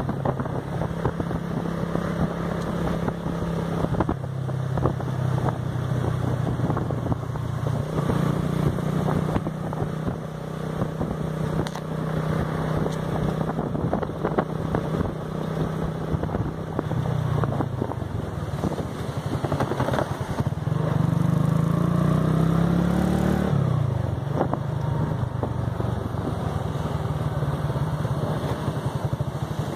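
Motorcycle engine running under way, its pitch shifting with the throttle. About two-thirds through, the pitch rises steadily as the bike accelerates, then drops suddenly.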